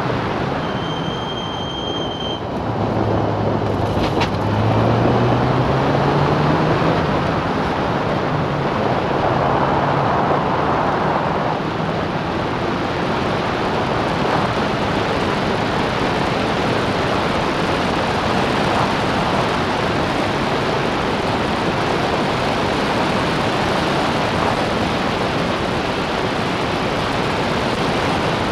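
Clubmans racing car engine pulling hard on the throttle, picked up by an onboard camera and buried in heavy wind rush over the open cockpit; the engine note climbs a few seconds in as the car drives out of a corner.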